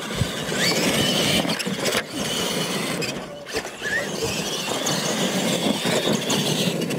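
Radio-controlled monster trucks racing on dirt: their motors and gearboxes give a high whine that rises and falls with the throttle, over the scrabble of tyres on the dirt.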